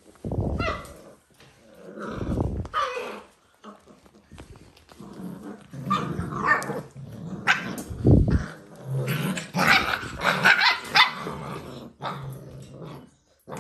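Dalmatian puppies play-growling in bursts, with higher yaps and whines mixed in, as they tussle over a chew toy.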